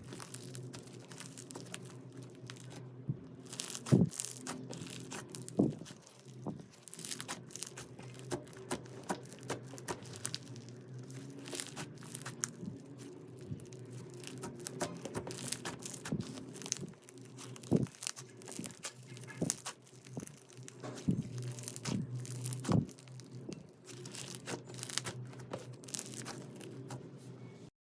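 Slime being squished and stretched by hand, with irregular crackling, popping and squelching clicks and a few louder pops.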